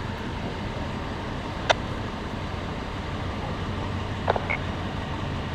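Steady low vehicle rumble with a hum, like a car idling or passing traffic, broken by three short clicks: one about two seconds in and two close together near the end.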